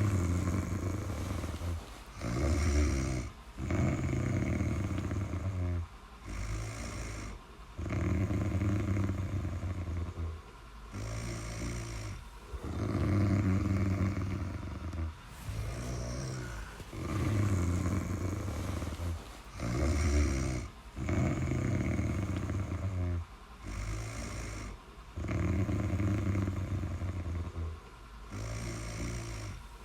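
Snoring: a regular run of low, rough breath sounds, several breaths in a row with short gaps between them.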